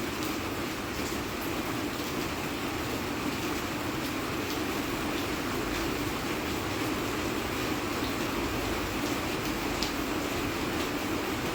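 Steady rain: an even rush with faint, scattered drop ticks.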